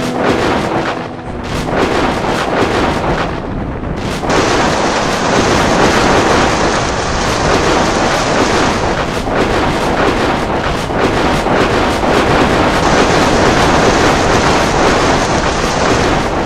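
Thunderstorm: long, continuous thunder rumbling, which grows louder and denser about four seconds in.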